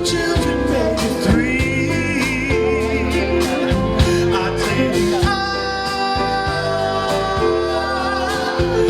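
Live band playing, with a steady drum beat, bass and guitar under a wavering lead melody.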